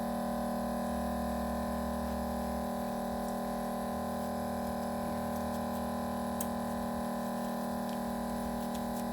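Steady electrical hum made of several fixed tones, with a few faint clicks.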